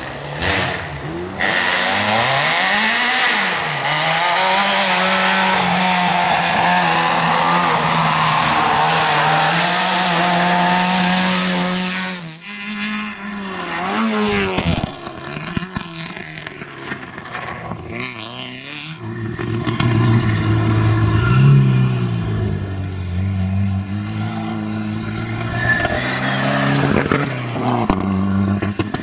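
Rally car engines driven hard, the Peugeot 205 revving high with its pitch climbing and dropping through the gear changes. After a break about halfway through, a deeper-sounding rally car takes over, revving and changing gear, with some tyre noise on the wet road.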